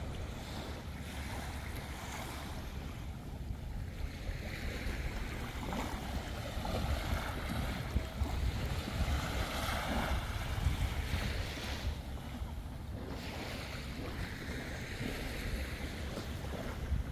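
Sea waves washing, with wind rumbling on the microphone. The wash of water grows louder about halfway through, then falls back.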